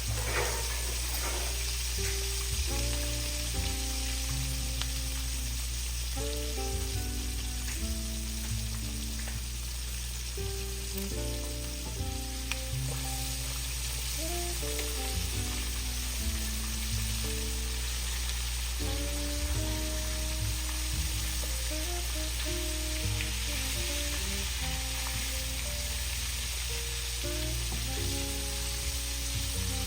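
Chicken frying in hot oil, a steady sizzle throughout, with a background music melody playing over it.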